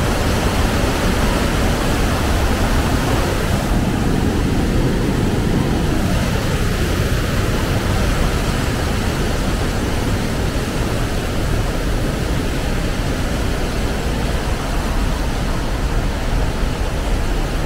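Steady, even rush of white water from a waterfall pouring through a rock gorge.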